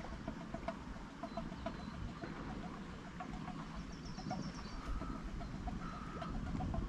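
Outdoor ambience with a bird calling in short repeated notes, a few a second, and a brief high twitter about four seconds in, over a low wind rumble on the microphone.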